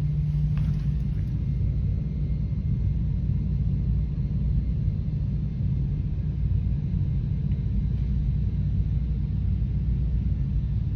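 Steady low rumble throughout, with its energy in the deep bass.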